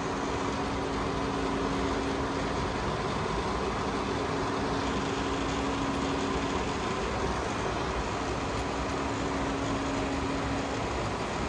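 Correa F2UE universal milling machine running on vertical power feed: a steady hum from the feed drive and gearbox with a constant whine.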